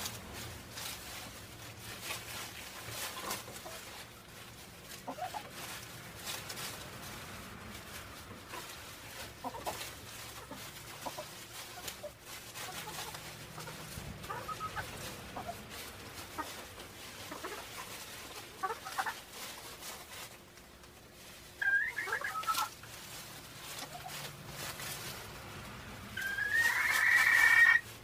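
Chickens clucking softly on and off, with a louder short call a little past the middle and a longer, louder call near the end, the loudest sound.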